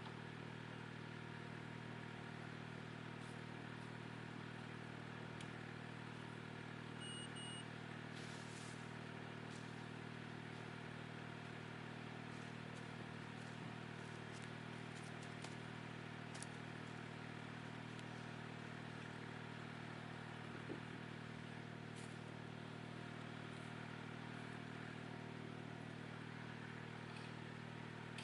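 Ventrac 4520Z's diesel engine running at a steady speed, an even low hum with no change in load.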